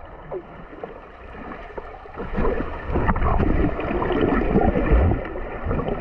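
Muffled churning and gurgling of water heard from a camera held underwater by a swimmer, growing louder about two seconds in.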